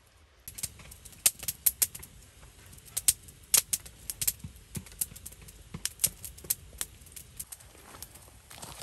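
Irregular sharp clicks and taps, like small hard objects being handled. They start about half a second in and are loudest and most frequent in the first few seconds.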